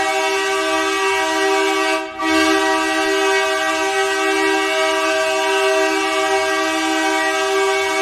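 Hadley Bully air horn used as an ice-hockey goal horn, sounding one long steady blast that cuts out briefly about two seconds in and then blows on again.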